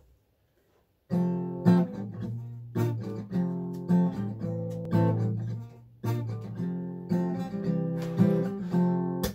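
Acoustic guitar strumming chords as an instrumental intro, starting about a second in after near silence.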